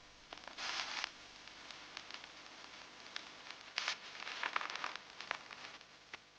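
Faint handling noise: rustling with scattered light clicks. There is a louder rustle about half a second to a second in and a brief one near four seconds.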